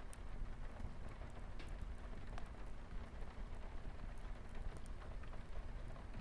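Wood fire crackling and popping, with sharp irregular pops over a steady patter of light rain on a window.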